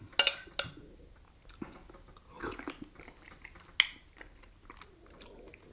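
Close-up chewing and mouth sounds of a man eating canned chicken and dumplings, with a few sharp clicks of a spoon against the container: two near the start and one near the middle.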